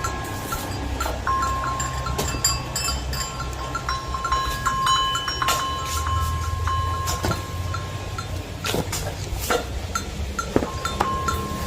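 Livestock pen sounds as a sick cow is dosed with herbal jamu from a bamboo drenching tube: scattered knocks and clicks over a low rumble. A thin, steady high tone breaks off and starts again several times.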